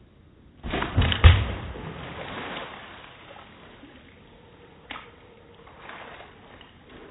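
A heavy thud as someone lands on a large water balloon, which bursts with a splash of water that dies away over about two seconds. A single short knock follows a few seconds later.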